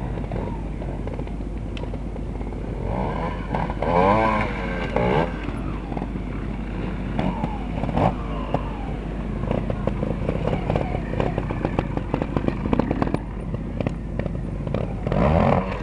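Trial motorcycle engines running at low revs and blipping the throttle, with quick rises and falls in revs about four seconds in and again near the end, and an uneven rapid patter of the engine at low revs in between.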